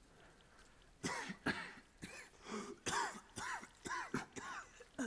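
A badly wounded man coughing in a run of short, rough coughs, some with a voiced groan in them, starting about a second in.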